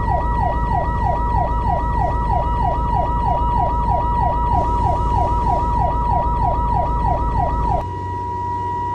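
Emergency siren on yelp: a fast, evenly repeating falling sweep, about three a second, over a steady high tone and a low rumble. The yelp and rumble cut off suddenly near the end, leaving the steady tone and a low hum.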